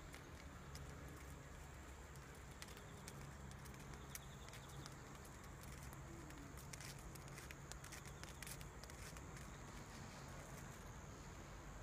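Faint outdoor ambience: a steady high insect trill, with scattered light clicks and ticks, most of them in the middle of the stretch.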